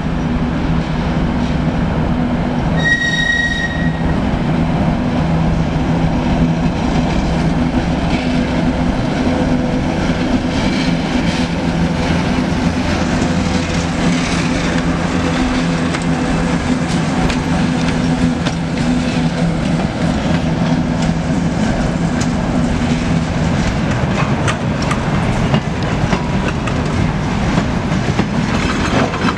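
ChME3 diesel shunting locomotive's six-cylinder diesel engine running steadily as it hauls a freight train past, the engine drone fading after about twenty seconds as the wagons roll by with wheels clicking over the rails. A brief high-pitched tone sounds about three seconds in.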